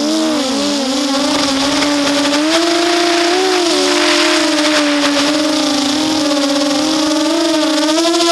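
RCX 250 mini quadcopter's motors and propellers whining, heard close up from its onboard camera. The pitch wavers with the throttle, rising a little about two and a half seconds in and settling again.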